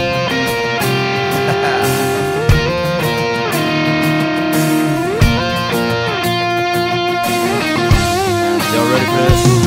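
Background music with no singing: an electric guitar lead with bent, sliding notes over a band, with a heavy beat about every two and a half seconds.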